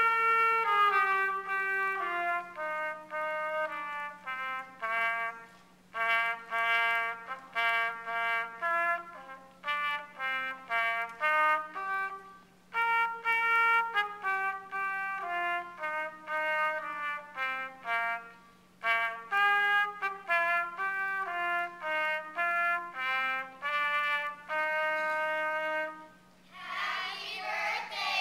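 Solo trumpet played by a child, a melody of short notes with repeated falling step-wise runs. Near the end the trumpet stops and many voices take over.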